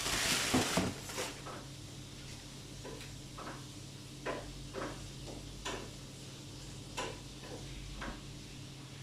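Shoes and their packaging being handled: a burst of rustling in the first second, then a series of light, scattered clicks and knocks.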